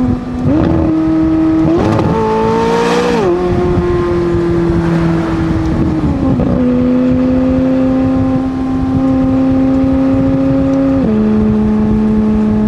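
McLaren 600LT's twin-turbo V8 running under way. Its note climbs in the first few seconds, with a short rushing burst about three seconds in. It then settles into steady cruising, stepping down in pitch with gear changes about six and eleven seconds in.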